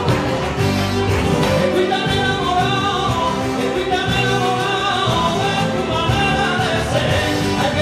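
Latin dance music with singing, playing steadily.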